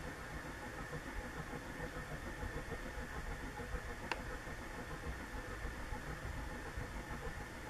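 1985 4 Saisons ceiling fan's direct-drive motor running on low speed: a steady low rumble with a faint hum, the 'train sound' this motor makes most on low. A faint click about four seconds in.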